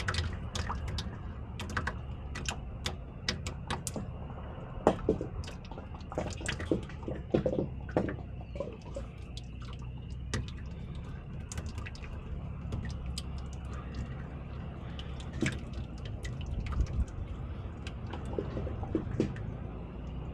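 Engine oil draining from a Cat C12 diesel's oil pan into a bucket near the end of the drain: irregular dripping and splashing over a steady low rumble.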